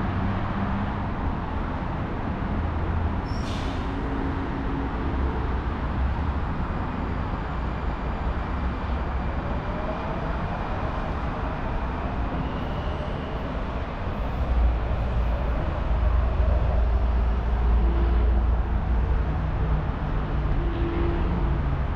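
Low steady rumble of passing vehicles, with a faint rising whine around the middle and the rumble growing louder in the second half.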